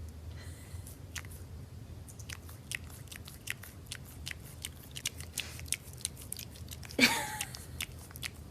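An animal chewing and biting on something crunchy: a string of irregular crisp crunches. A brief sound with a falling pitch comes about 7 seconds in.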